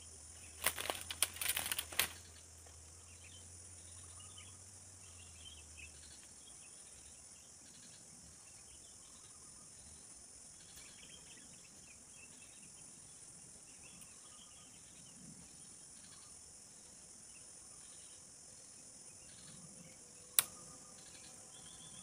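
Leaves and a twig rustling as they are handled, about a second in. Then quiet outdoor ambience: a steady high hiss with faint, scattered bird chirps, and one sharp click near the end.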